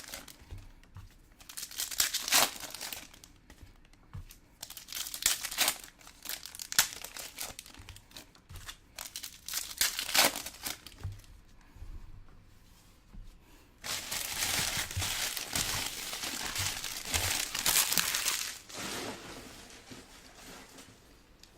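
Trading-card pack wrappers crinkling and tearing in several short bursts. About two-thirds of the way in comes a longer stretch of steady crinkling lasting about five seconds.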